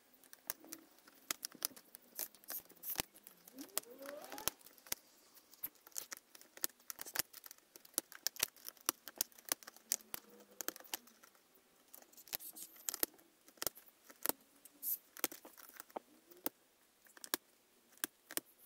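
Plastic keycaps of a Microsoft computer keyboard being pried off with a flat screwdriver and pressed back by hand: a run of irregular sharp plastic clicks and snaps, sometimes several a second.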